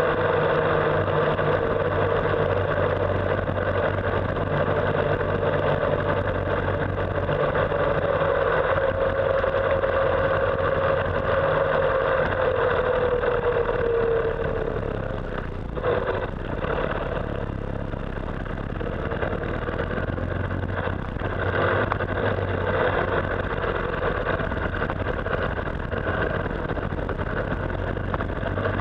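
Motorcycle engine running at road speed, heard from the bike itself with road and wind noise. Its note drifts down in pitch a little before halfway and briefly drops in level just after, as the throttle eases.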